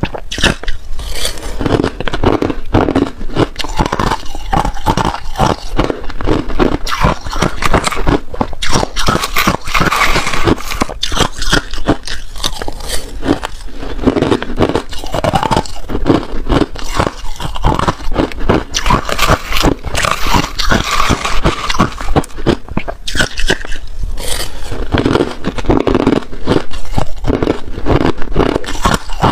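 Crushed ice crunched and chewed between the teeth, close to a clip-on microphone: a dense, continuous run of sharp crackling crunches. A metal spoon scrapes through the ice in a plastic tub between mouthfuls.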